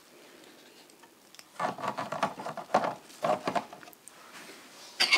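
3D-printed plastic lid and plant holders being handled and set onto a hydroponics reservoir. About a second and a half in there are two short runs of light knocking and rubbing, and near the end a single sharp click.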